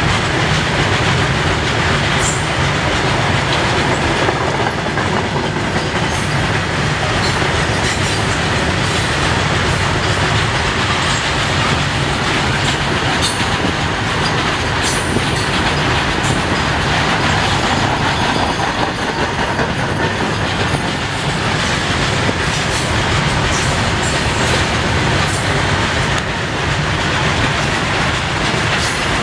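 BOXN open freight wagons rolling past close by: a steady loud rumble of steel wheels on rail, with scattered sharp clicks and clanks from the wheels and rail joints.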